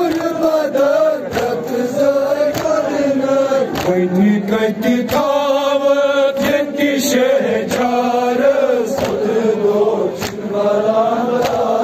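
Kashmiri noha, a Shia lament, chanted by a male lead reciter and answered by mourners chanting the refrain. Sharp, even chest-beats (matam) fall a little more than once a second and keep the rhythm.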